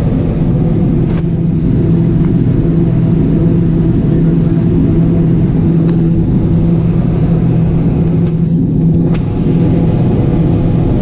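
John Deere 9570 combine harvester running steadily while harvesting corn, heard from inside the cab as a loud, even drone with a constant low hum. A few faint clicks sound over it.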